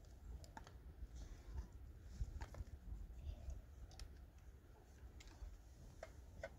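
Faint, scattered clicks and light knocks, about half a dozen, over a low rumble.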